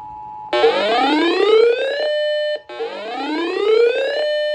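The steady two-tone Emergency Alert System attention signal cuts off about half a second in. A loud electronic alert tone follows, sweeping upward for about a second and a half, holding briefly, then stopping; it repeats once in full and begins a third time near the end.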